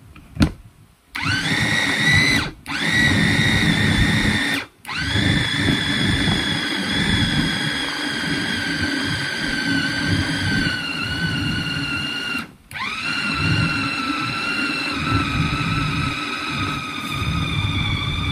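Electric food chopper's motor whirring as it minces a raw chicken, sausage and egg filling, run in four bursts with brief stops between. Each start rises to a steady whine that sags slightly as it works. A short knock comes just before the first start.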